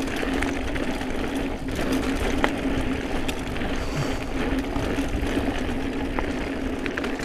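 Hope Tech Pro 4 rear hub's freewheel buzzing at a steady, even pitch as the mountain bike coasts fast down a dirt singletrack. Underneath are the rumble of the tyres on dirt and scattered small clicks and rattles from the bike.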